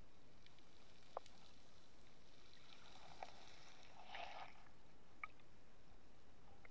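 Underwater sound through a submerged camera: a faint steady hiss with a few scattered single clicks, and a brief swirl of water about four seconds in as a hand lets a barracuda go and it swims off.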